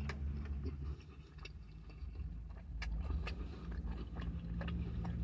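A person chewing a mouthful of burger with the mouth closed, making scattered small wet clicks and smacks. A low steady hum from the car runs underneath.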